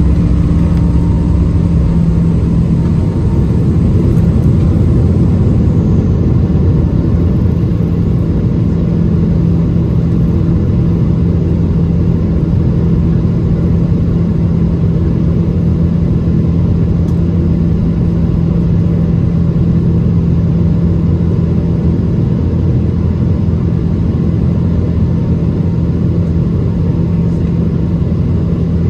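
Boeing 777-200ER turbofan engines at takeoff thrust, heard inside the cabin over the wing: a loud, steady drone with a strong low hum as the airliner lifts off and climbs out.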